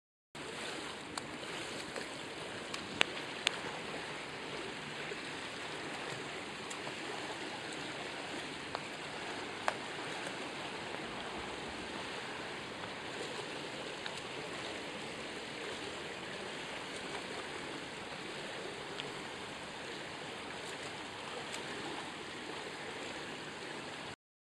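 Swimming-pool water splashing and rushing steadily as a child swims front crawl along the pool edge. A few sharp slaps stand out, two about three seconds in and one near ten seconds.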